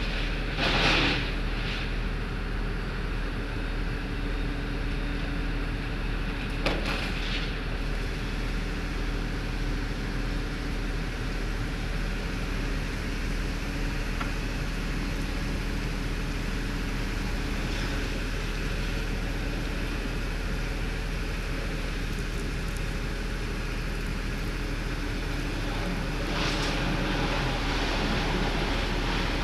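Hydraulic excavator diesel engines running steadily, with a brief hissing burst about a second in, a single sharp knock about seven seconds in, and a louder noisy stretch near the end as the machines work.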